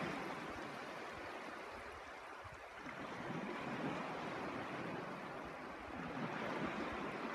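Shallow water washing across a flat sandy beach in a steady hiss that eases slightly and swells back, with wind rumbling on the microphone.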